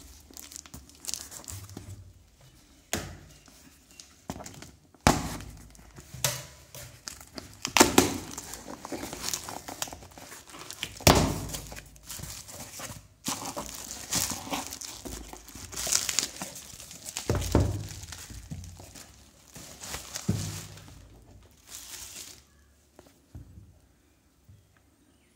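Hands opening a cardboard shipping box: tearing and crinkling of the packaging and bubble wrap, with a few sharp knocks as the box is handled. The handling sounds die away near the end.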